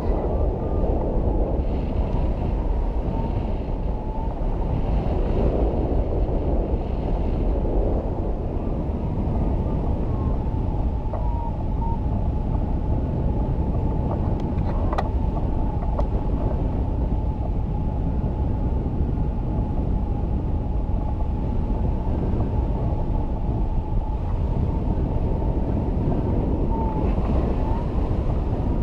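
Airflow buffeting the microphone of a camera mounted on a hang glider in flight: a steady low rush of wind that swells and eases every few seconds. A faint steady high tone runs underneath.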